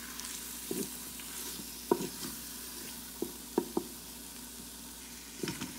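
Onions, tomatoes and masala frying with a steady sizzle in the stainless steel inner pot of an Instant Pot while the tomatoes soften. A wooden spatula stirs them, knocking against the pot a few times, most sharply about two seconds in.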